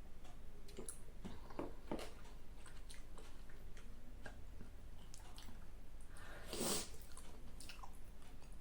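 Close-miked chewing of spicy black bean (jjajang) ramen noodles, with small wet mouth clicks throughout and one louder, longer burst of noise about two-thirds of the way in.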